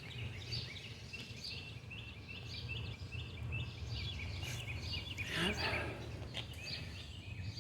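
A bird chirping repeatedly outdoors, short high chirps about three a second, over a steady low background hum; a louder brief sound breaks in about five and a half seconds in.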